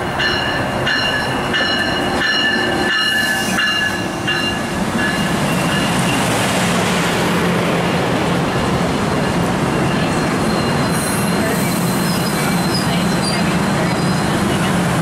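Amtrak passenger train pulling into the station, its coaches rolling slowly past at close range. Several high-pitched squeals sound over the first five seconds or so, then the cars go on with a steady rumble as the train slows.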